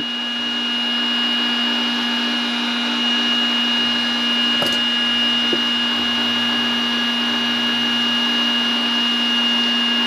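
DeWalt cordless heat gun running steadily, its fan blowing with a constant whine, while it shrinks heat-shrink tubing over a crimped battery-cable lug.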